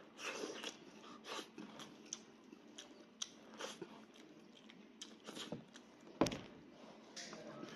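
A person chewing and biting meat from a cooked sheep's head, close to the microphone: irregular wet smacks and clicks of mouth and teeth, with one louder sharp bite about six seconds in.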